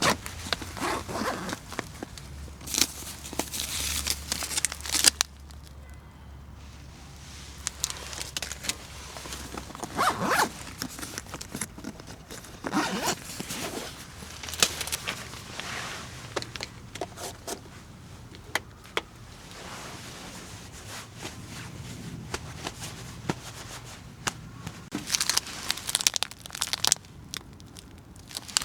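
Irregular bursts of rustling and crinkling handling noise with sharp clicks and knocks, from gear and packaging being handled while camp is set up.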